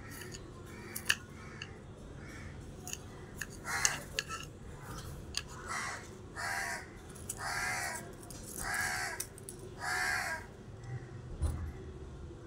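A bird giving a run of harsh calls, about one a second, each about half a second long, loudest in the middle of the stretch. Light sharp clicks and taps sound now and then.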